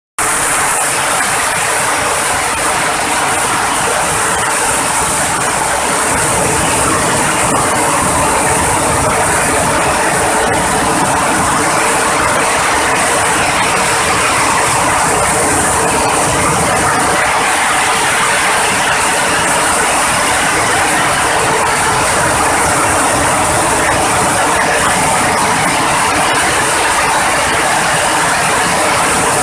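Dry coffee huller running steadily: a continuous loud mechanical rattling and grinding with a steady hum beneath it.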